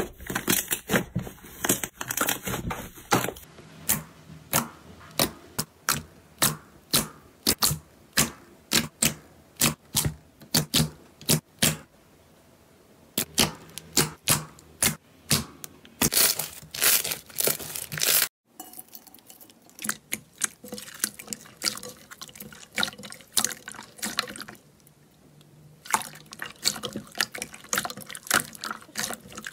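Hands squeezing, pressing and poking slime: a run of sharp, wet pops and squelches, about one to two a second, with a few short pauses.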